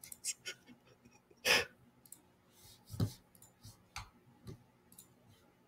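Scattered computer mouse clicks, with a short breathy laugh about one and a half seconds in.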